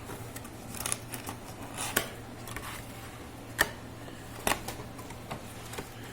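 Scattered clicks and light rustles of objects being handled, the sharpest near the start, in the middle and just after it, over a steady low hum.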